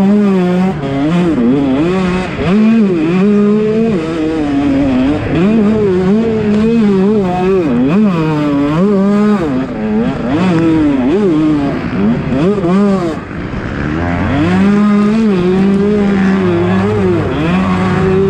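KTM 125 SX two-stroke engine being ridden hard, its pitch rising and falling again and again with throttle and gear changes, with a short lull about thirteen seconds in.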